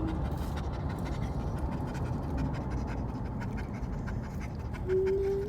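Yorkshire terrier panting steadily over a low background rumble, with a short rising tone near the end.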